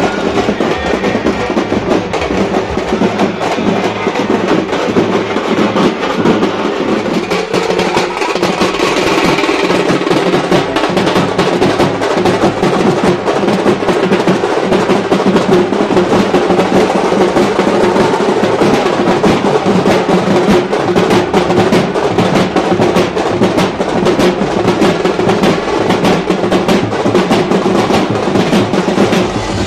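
Street drum band playing a fast, continuous beat: side drums rattling away under a big bass drum, dense rapid strokes with no let-up.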